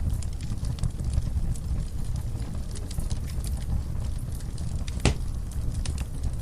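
Wood logs burning in a fireplace: the flames make a steady low rumble while the wood crackles with scattered small pops, one sharper pop about five seconds in.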